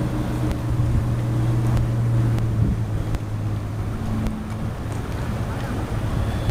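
Engine of a yakatabune (Japanese pleasure houseboat) running with a steady low hum, over a haze of background noise.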